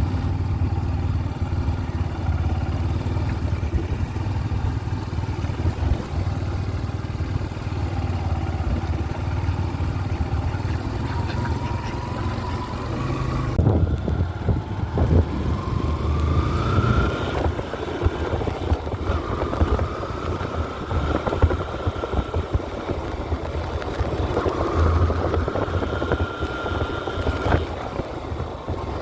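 Motorcycle engine running during an off-road ride, its pitch rising and levelling off several times as it accelerates, over a steady low rumble. A few knocks come about halfway through.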